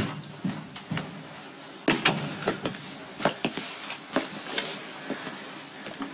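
A series of sharp, irregular knocks and taps, about two a second, over a faint steady background.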